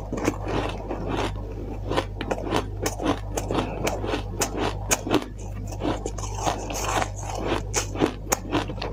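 Soft white ice being chewed: a rapid, irregular run of crisp crunches.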